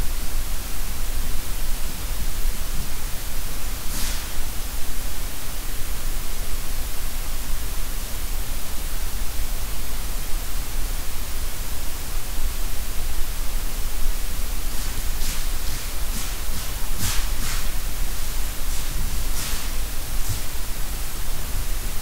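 Steady loud hiss of a digital recorder's night recording turned up high, with one faint click about four seconds in and a scattered run of faint clicks in the second half.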